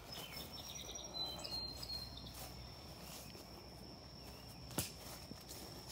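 Insects calling: a run of short high chirps in the first two seconds, then one steady high-pitched trill. A single sharp knock comes near the end.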